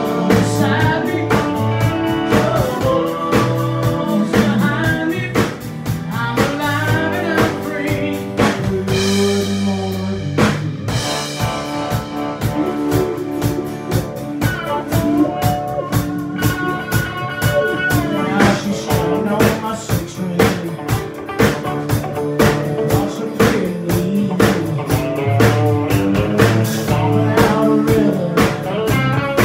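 A live country band playing a song, with a steady beat on a drum kit under electric and acoustic guitars. A lead line of bent, sliding notes runs over the top.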